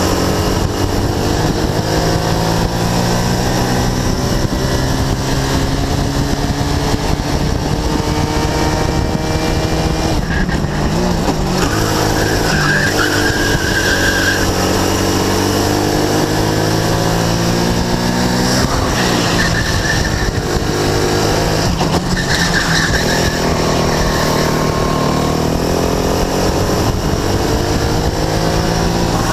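Sodi RX-250 kart's engine heard from the driver's seat, its pitch climbing along the straights and dropping sharply under braking about three times. The tyres squeal briefly through several corners.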